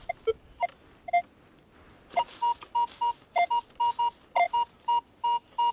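Minelab metal detector beeping as its coil is swept over a freshly dug hole. A few scattered beeps come first, then from about two seconds in a quick run of short beeps at about three a second, mostly high with some lower-pitched, signalling that the target is still in the ground.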